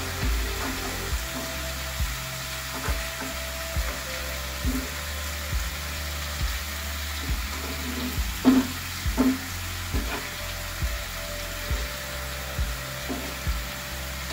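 Masala-coated fish sizzling steadily in oil on a cast-iron dosa tawa, with a steel spatula scraping and turning them; two louder scrapes come about eight and nine seconds in.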